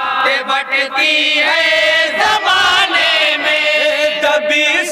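A group of men singing an Urdu naat together in chorus, voices only with no instruments.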